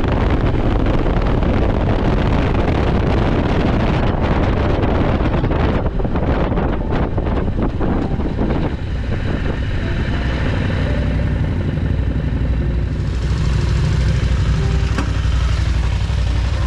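KTM 890 Adventure R parallel-twin motorcycle riding fast on a gravel road, with engine, tyre and wind noise on the handlebar camera. About halfway through it eases down to a slow roll, and the engine's low drone becomes plainer under less wind.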